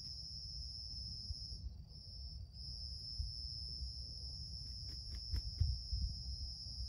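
Insects droning steadily at a high pitch, cutting out briefly about two seconds in. About five seconds in comes a quick run of four short clicking notes.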